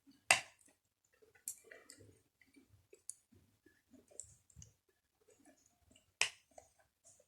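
Close-miked eating of uphuthu, crumbly maize pap with sour milk: soft chewing and wet mouth clicks, with two sharp, loud clicks, one near the start and one about six seconds in.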